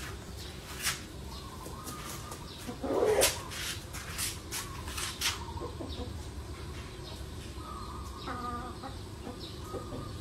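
Chickens clucking, in short calls over a steady low rumble, the loudest about three seconds in and another pitched call a little after eight seconds.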